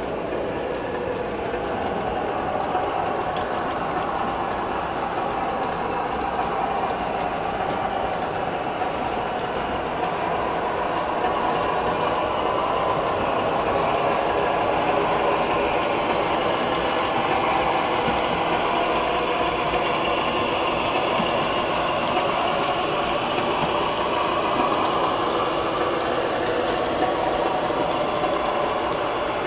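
O gauge model trains running on three-rail track: wheels rolling with a steady diesel engine sound from a locomotive's onboard sound system. It grows a little louder in the second half as a freight train comes past close by.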